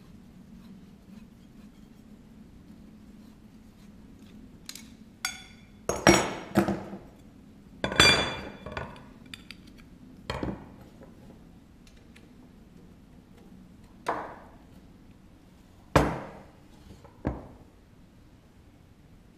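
Lengths of 15 mm copper pipe knocking and clinking against each other and a wooden workbench as they are handled and laid down. About eight separate knocks come at uneven intervals, some ringing briefly, the loudest around six and eight seconds in.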